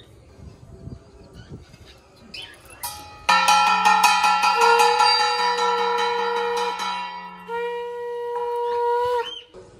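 Conch shell (shankha) blown for the puja in two long, steady blasts, the first starting about three seconds in, the second ending with a short upward break.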